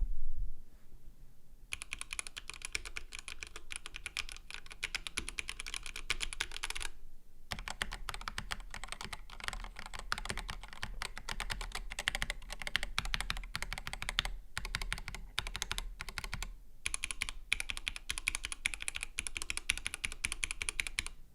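Typing on Mark: 65 65% gasket-mount mechanical keyboards with stock, unlubed L2 switches on aluminum plates, a polycarbonate-cased board and an aluminum-cased board compared side by side. The keys click steadily in three stretches, with short pauses about 7 and 17 seconds in. The middle stretch sounds deeper and less clicky than the other two.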